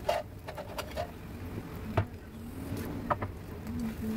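Wooden chopsticks clicking and scraping against a coated wok as udon noodles and onion are stir-fried, a few sharp taps over a faint steady sizzle.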